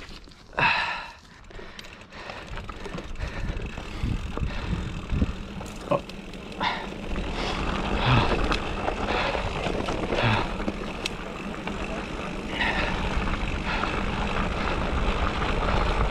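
Mountain bike descending a steep dirt singletrack at speed: wind rushing over the helmet-camera microphone grows louder as the bike picks up speed, with scattered knocks and rattles from the bike over bumps.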